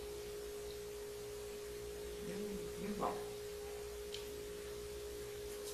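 A woman eating a crisp fried bean ball: a few short closed-mouth "mm" sounds of her voice about two to three seconds in, and faint chewing clicks later on. A steady two-tone electrical hum runs underneath.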